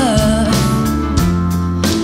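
Live pop song from a small band: a woman's voice sings a phrase that slides down near the start, over electric guitar and keyboard chords that carry on after the voice stops.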